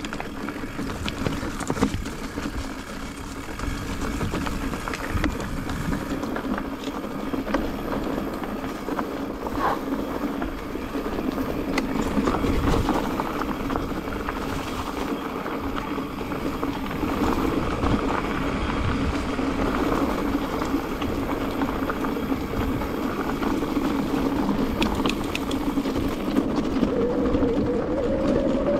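A bike ridden over a rocky trail: tyres crunching and knocking over loose stones, the bike rattling, and wind on the microphone, under a steady low hum whose pitch rises briefly near the end.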